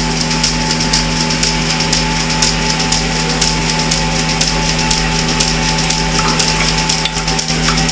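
Milking machine running: a steady motor hum with light clicking throughout.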